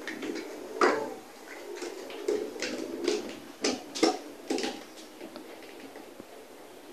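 Small plastic toy dishes and utensils clicking and knocking against a toy kitchen as a child handles them, a run of sharp taps that stops about five seconds in.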